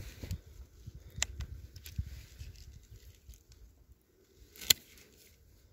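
Hand pruning shears working on young walnut shoots: a few light clicks as the blades are set and handled, then one sharp snip near the end.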